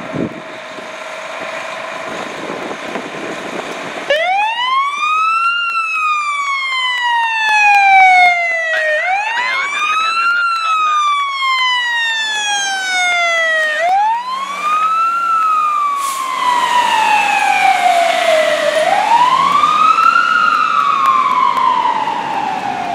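Fire engine siren wailing, starting about four seconds in. Each cycle rises quickly and then falls slowly, repeating roughly every five seconds, over the rumble of the truck pulling out.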